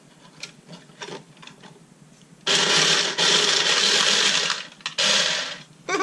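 Automatic playing card shuffler running: its two small geared motors drive the rollers that flick the cards from both trays into the centre with a dense, steady whirring riffle, lasting about two seconds from two and a half seconds in, then a second shorter burst near the end. Before it, a few light clicks of cards being set in the trays.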